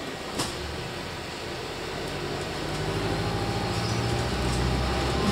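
Interior of a Volvo 7900 hybrid articulated city bus under way. Its drivetrain hum grows louder from about two seconds in, with a sharp click about half a second in.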